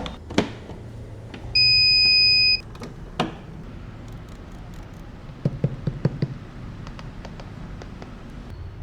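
A single steady electronic beep lasting about a second, among scattered clicks and knocks of handling, with a quick cluster of taps in the second half.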